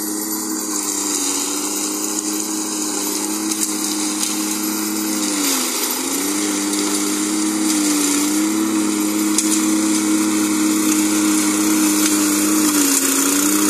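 Small engine of a walk-behind soil-scraping machine running steadily under load as its blade scrapes grass and topsoil off the ground. The engine's pitch dips briefly about six seconds in and again near the end.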